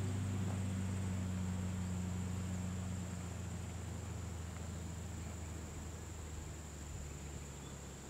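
A steady low engine hum that slowly fades away, under a continuous high-pitched insect buzz.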